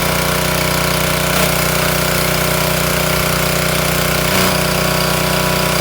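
The Troy-Bilt Storm 2620 snowblower's single-cylinder four-stroke engine running at a steady speed.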